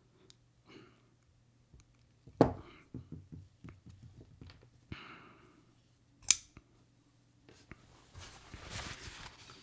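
Zero Tolerance 0808 folding knife being worked by hand: sharp clicks of the blade flipping open and snapping shut on its bearing pivot, with small ticks between, as the freshly tightened pivot's action is tested. Two clicks, about 2.5 s and 6.5 s in, stand out; soft handling rustle follows near the end.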